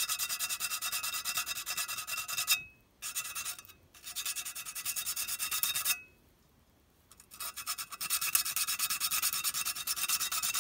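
Sandpaper rubbed by hand over the painted tinplate cab of an old clockwork O gauge locomotive, in quick back-and-forth strokes, taking off paint and surface rust. The strokes stop briefly about three seconds in and again for a second or so past the middle, then carry on.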